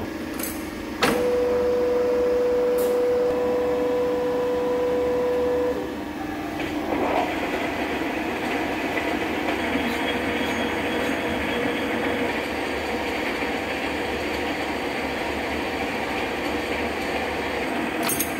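Big centre lathe running. A click about a second in is followed by a loud, steady whine that stops near six seconds. From about seven seconds a carbide-insert boring bar cuts steadily inside a large steel tube, a continuous noisy cutting sound over the lathe's hum.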